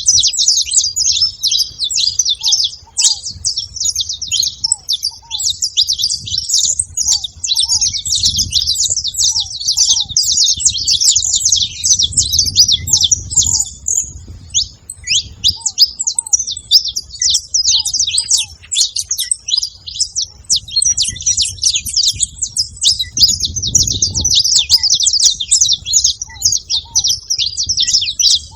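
Saffron finch singing a fast, chattering song almost without a break. Under it, ground doves give faint low paired notes about once a second.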